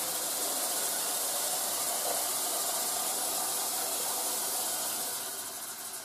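Tap water running steadily into the 1.8-litre water tank of a Philips EP1200 coffee machine held under the faucet, fading out near the end.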